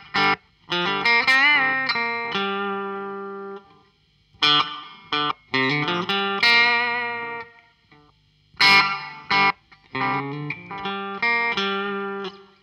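Fender Telecaster played through a Fender Blues Junior valve amp and the Coldcraft EchoVerberator reverb and delay pedal in momentary mode, the effect working only while the footswitch is held down. Three short phrases, each opening with a sharp strummed chord, with bent notes wavering in vibrato and ringing out between brief pauses.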